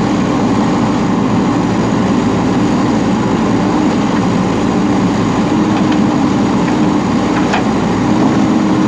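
JCB backhoe loader's diesel engine running steadily while it works, with a higher steady tone that swells and fades every second or two.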